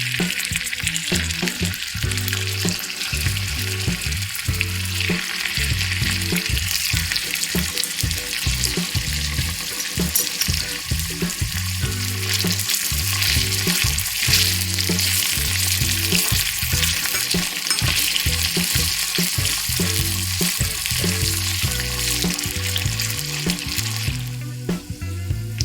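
Food frying in hot oil in a miniature pan, a steady dense sizzle that stops about a second before the end, with light stirring clicks. Background music with a low beat plays underneath.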